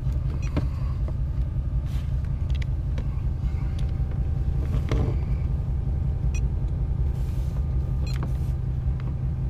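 2012 LML Duramax 6.6 L V8 turbodiesel idling steadily, heard from inside the cab as a low rumble. A few light clicks come through as buttons are pressed on a dash-mounted scan tool.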